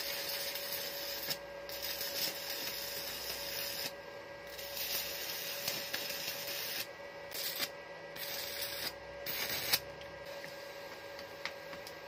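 Stick welding arc crackling and sizzling as a bead is run over a stainless steel patch on a bicycle head tube, the arc breaking off briefly several times and stopping about ten seconds in. A faint steady tone runs underneath.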